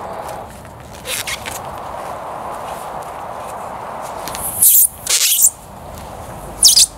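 Plastic barrier tape ripped off its roll in short, zip-like pulls: about a second in, twice in quick succession past the middle, and once near the end, the later pulls loudest. A steady background hiss runs beneath.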